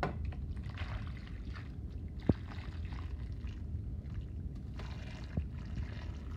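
Hot water poured from a saucepan into a glass baking dish over a piece of leather, splashing in uneven stretches. Two sharp knocks, one near the middle and one near the end.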